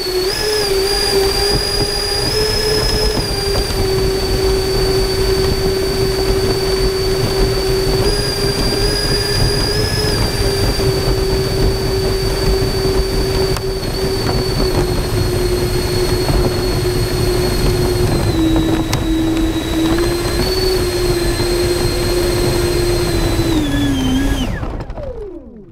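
The model SR-71 jet's electric ducted fans running at a steady high whine over a low airflow rumble, after spinning up sharply at the start. Near the end the whine drops in pitch as the fans spool down and stops.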